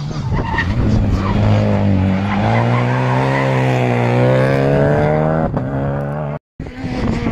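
Rally car engine running loud as the car passes on the stage road, its note rising and falling. The sound drops out briefly near the end and an engine comes back.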